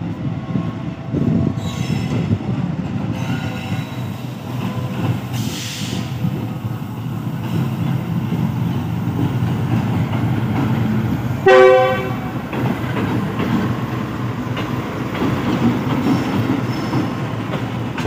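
GEU40 diesel-electric locomotive hauling an express train slowly past a station platform: steady rumble of the engine and wheels. A short horn blast sounds about eleven seconds in.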